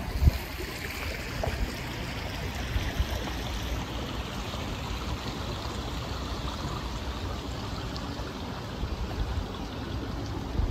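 Steady rush of running water, with gusty low wind rumble on the microphone and a brief low thump just as it begins.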